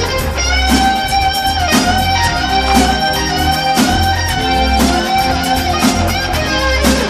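Music: a steady beat with a strong hit about once a second, under a held lead melody whose long notes slide at their ends.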